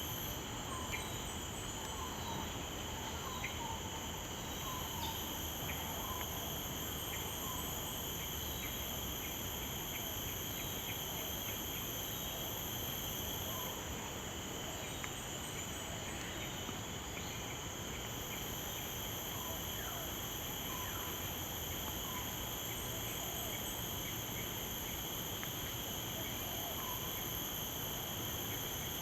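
Steady chorus of insects, several high drones at once, with short faint chirps scattered through it.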